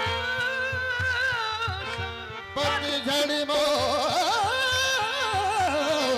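Qawwali music: a lead voice sings long, wavering melismatic lines over sustained harmonium chords, with a steady hand-drum beat underneath. The voice drops out briefly about two and a half seconds in, then comes back.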